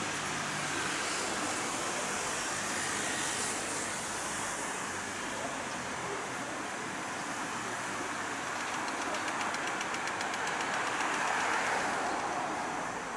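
Shonan Monorail rubber-tyred suspended train running away along its elevated track, a steady running noise mixed with street traffic. A road vehicle passes and is loudest near the end.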